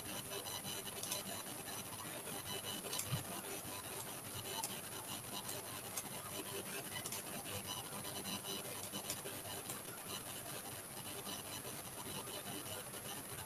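Stylus scratching on a graphics tablet as a digital drawing is made: a steady scratchy rubbing noise, with scattered sharp clicks from the pen or keyboard as tools are switched.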